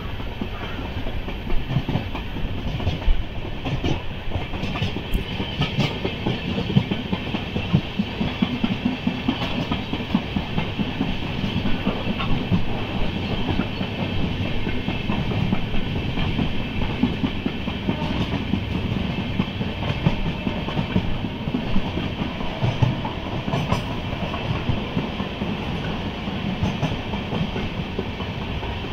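Deccan Queen express train running at speed, heard from its open coach door: a steady rumble of wheels on rails with clickety-clack and sharp clatters over rail joints and points.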